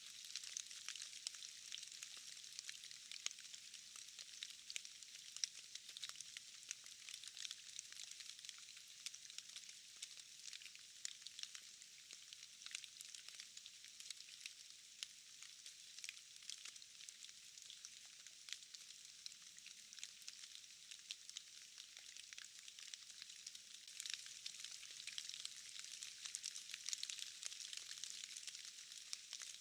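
Light rain falling, a faint, steady hiss dense with small drop ticks.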